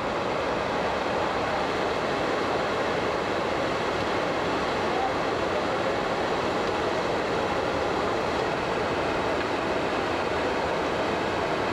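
Steady rushing water noise, even and unbroken.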